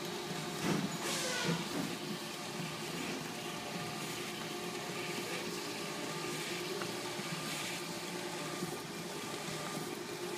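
Formax ColorMax inkjet envelope printer running, a steady motor and conveyor hum, with the paper rustle of 9x12 envelopes being fed through and carried out. The rustle is loudest about a second in.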